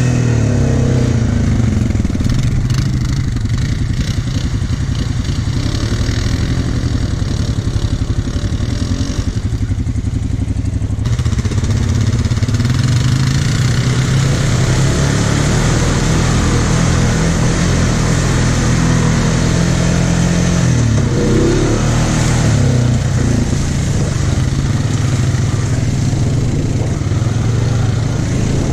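Honda Foreman 500 ATV engine running under way, its note rising and falling with the throttle, over a steady rush of trail noise.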